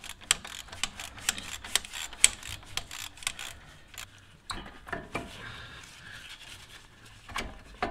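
Socket ratchet clicking in quick runs of ticks as the lower brake caliper bolt is backed out. About four seconds in, this gives way to quieter scraping as the cast-iron caliper is worked off its bracket.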